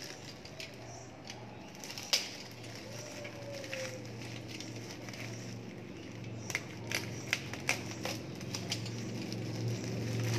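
A yellow box cutter slicing open a plastic courier pouch, the plastic crinkling, with scattered sharp clicks and snaps: one loud click about two seconds in and a quick run of them between about six and nine seconds. A steady low hum underneath grows louder near the end.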